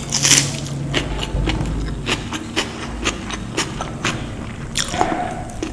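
Close-miked chewing and wet mouth sounds of a person eating soft flatbread with paneer curry, with a bite just after the start and soft clicks a few times a second.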